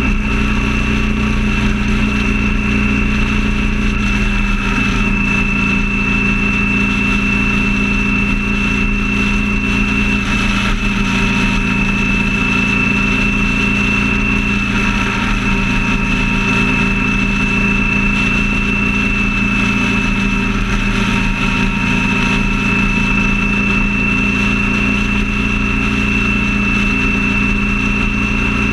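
Steady engine drone and road noise of a vehicle cruising at an even freeway speed, with a thin steady high whine over it.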